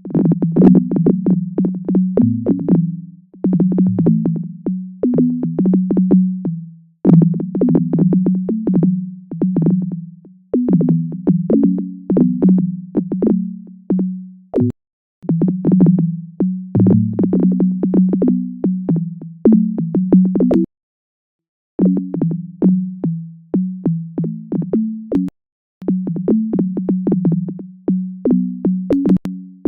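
Electronic data-sonification music made from earthquake records, each note standing for one quake. Low synthesizer tones with sharp percussive attacks are struck in quick, irregular runs, each run fading away, with a few short breaks between them. Deeper and stronger quakes give lower and longer notes, and dense rhythms mark swarms of events.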